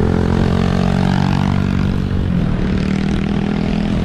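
Motorcycle engine running at a steady pace while riding, with wind and road noise on the mic.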